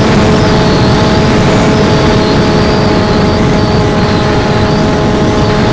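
HammerHead FPV flying wing in cruise, heard from its onboard camera: the electric motor and propeller droning at a steady pitch under heavy wind rush on the microphone.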